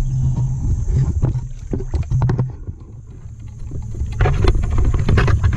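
Water sloshing and splashing as someone wades a shallow ditch and jabs a wooden pole into the water, over a low rumble. It eases off for about a second past the middle, then picks up again with more splashing.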